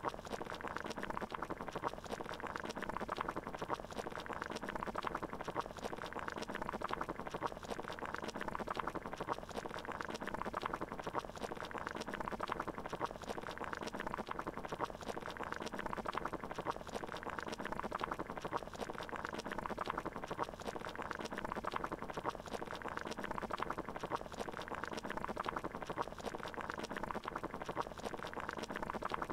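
Water at a boil, a steady dense bubbling that does not change.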